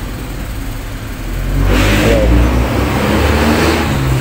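A motor vehicle's engine running and revving up, swelling about one and a half seconds in and staying loud until near the end.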